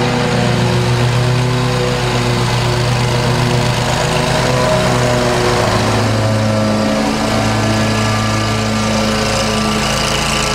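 Zero-turn ride-on mower's engine running steadily, its note shifting to a slightly different pitch about halfway through.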